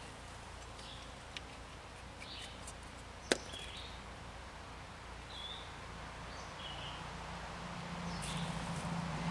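Quiet background with a small click about a second in and one sharp click about three seconds in, from hands handling small brake parts and a grease container. A few faint high chirps are scattered through it, and a low hum builds near the end.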